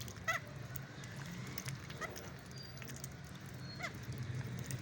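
Ducklings giving three short, falling peeps over scattered soft clicks, with a steady low hum behind.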